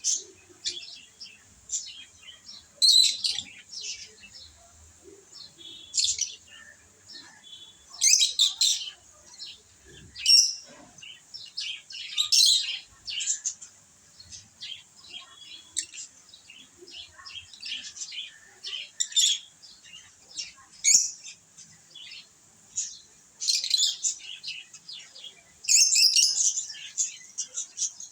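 Lovebirds chirping: quick, high-pitched chirps in clusters every second or two, with some louder bursts here and there and a long loud burst near the end.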